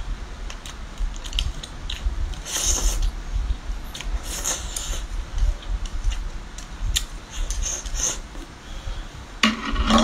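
Close-up eating sounds: a person slurping garlic vermicelli and scallop meat off a scallop shell and chewing, with several short hissing slurps and small clicks throughout.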